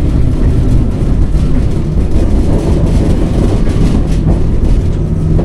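Alstom tram running along its street track, heard from inside the passenger cabin: a loud, steady low rumble of the wheels on the rails and the running gear.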